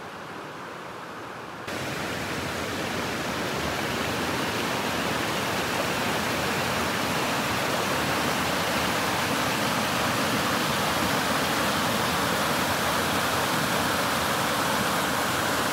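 Rushing water of small waterfalls and rapids: a steady, even rush that steps up louder a little under two seconds in.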